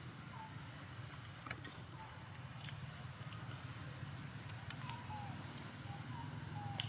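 Outdoor ambience: a steady high-pitched whine over a low hum, with scattered sharp clicks and short faint falling chirps every second or two.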